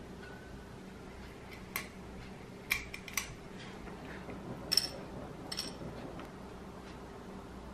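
A few sharp clicks and taps of a metal lever-release ice cream scoop against a small ceramic plate as a ball of thick Greek yogurt is let go, then light clicks as cacao nibs are set down on the plate, the loudest about five seconds in. A low, steady room hum runs underneath.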